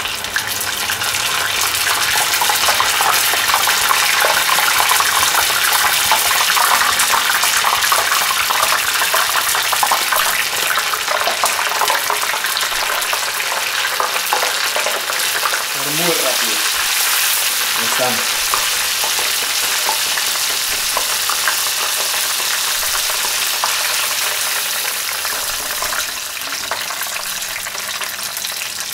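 Flour-coated squid rings deep-frying in hot oil in a saucepan: a dense, steady crackling sizzle of the oil bubbling around the batter, easing a little in the second half.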